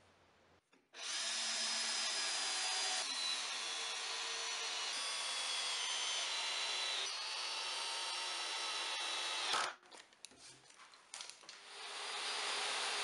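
Cordless drill driving screws into plywood, its motor whine holding and shifting in pitch as the screws go in. It stops about three-quarters through, a few clicks follow, then a steady motor noise comes up near the end.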